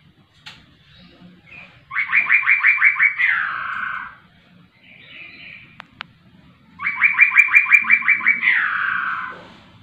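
Caged poksay rowo, a laughingthrush, singing loudly in two phrases, about two seconds in and again near seven seconds. Each phrase is a fast run of about eight repeated notes followed by a longer falling note, with a few softer chirps between the phrases.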